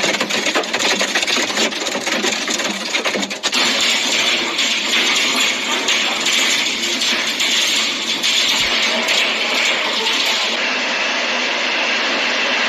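Hailstones pelting down in a dense, rapid clatter on hard surfaces. About three and a half seconds in, it gives way to a steadier, heavy hiss of pouring hail and rain.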